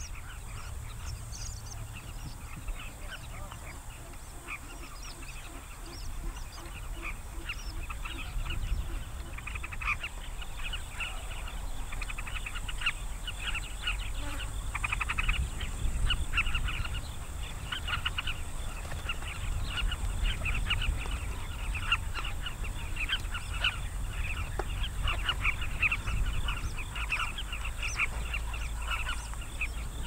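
A mixed flock of birds feeding on a swarm of flying termites, many short calls overlapping, growing busier about six seconds in. A steady low rumble runs underneath.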